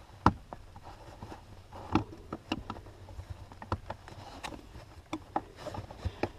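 Scattered clicks and taps of a plastic seat-rail trim cover being worked loose by hand. The sharpest click comes about a third of a second in.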